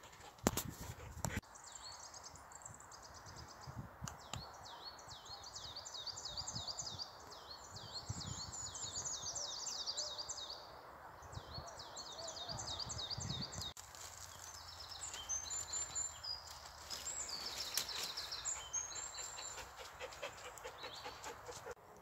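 Several songbirds singing in woodland, phrase after phrase of quick, sliding high notes, with a low rumble underneath. A few sharp clicks come near the start.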